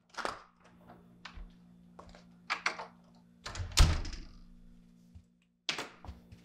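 A door closing with a heavy thump about four seconds in, amid scattered clicks and knocks, over a low steady hum.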